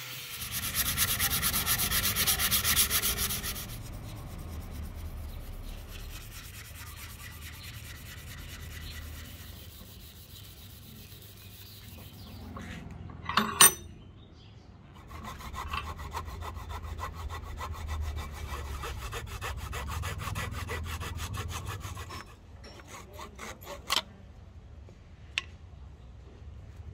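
A power disc sander runs against a palm-wood axe handle for about three seconds. Long stretches of rubbing and scraping on wood follow, with one sharp knock about halfway through and a few light taps near the end.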